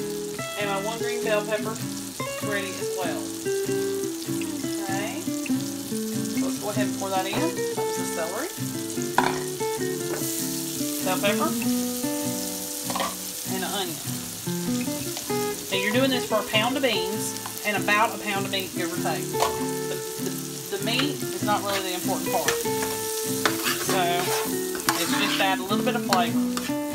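Diced onion, celery and bell pepper sizzling as they sauté in a pan on the stove, with a steady hiss and small crackles. Background music plays throughout.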